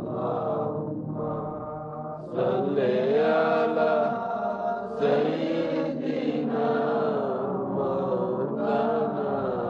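Devotional chanting of durood and zikr, led by a male voice, in long drawn-out melodic lines. It swells louder a little over two seconds in and again at about five seconds.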